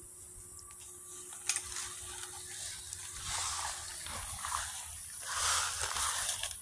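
A downed wild boar lying in a trap, breathing with rasping gasps: two noisy swells in the second half, the louder one near the end. A single sharp click comes about a second and a half in.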